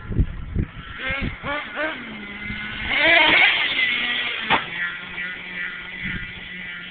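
Redcat Caldera 3.0 nitro RC monster truck engine revving in short rising and falling bursts, loudest about three seconds in, then running steadily at a low, even pitch. A couple of thumps come near the start.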